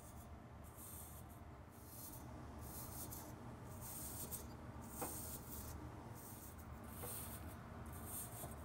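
Stiff-bristled hand brush scrubbing dust and lint off the fins of a refrigerated merchandiser's condenser coil: faint scratchy rubbing in repeated strokes, about one or two a second.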